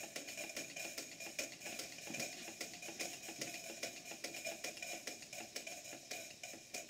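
Live-steam model hypocycloidal engine and beam engine running: a rapid, irregular clatter of light clicks and knocks from the moving parts over a steady hiss.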